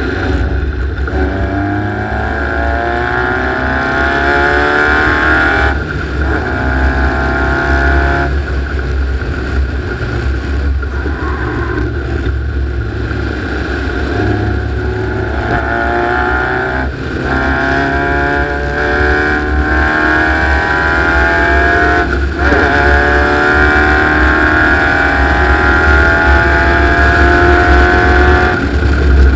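Open buggy's engine pulling hard round a circuit. Its pitch climbs steadily, then drops at each gear change, repeating several times over a steady low rumble.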